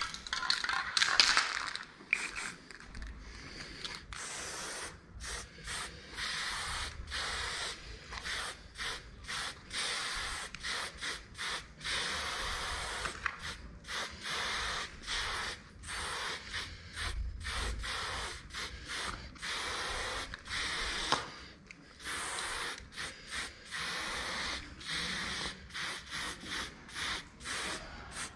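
Aerosol spray paint can hissing in many short bursts, one after another, as lines are sprayed onto a wall.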